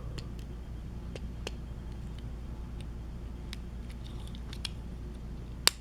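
Faint scattered clicks and taps as a die-cast toy truck is handled and a part of it is pried at, with one sharper click near the end, over a low steady hum.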